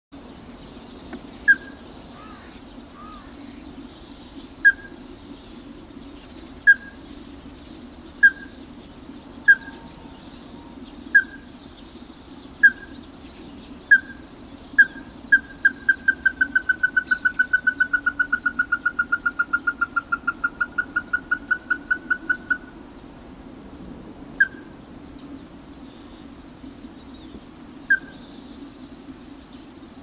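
Ruddy-breasted crake calling: sharp single knocking notes a second or two apart speed up into a rapid run of about five notes a second. The run lasts some seven seconds and dips slightly in pitch, then slows back to single notes. A steady low hum runs underneath.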